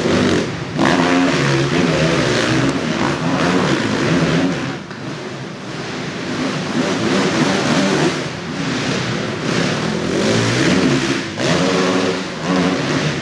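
Motocross bike engine revving hard and falling back again and again as the bike is ridden around a supercross track, with the throttle chopped briefly a few times (about half a second in, near the middle and near the end).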